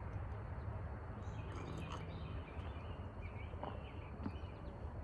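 Faint bird chirps over a steady low rumble of outdoor background noise.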